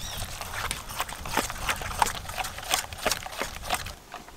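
A steel spoon clinks and scrapes against a stainless steel bowl while stirring a thick, wet spice paste of yogurt, spices and oil, in irregular strokes that stop a little before the end.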